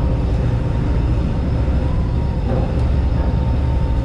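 A large party boat's engines running with a steady low rumble as the boat backs into its slip.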